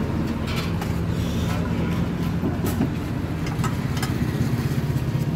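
An engine idling steadily with a low hum, with occasional light clicks over it.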